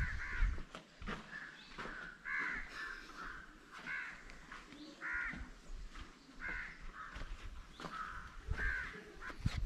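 Birds calling in short, repeated calls, about two a second. There is a single sharp knock near the end.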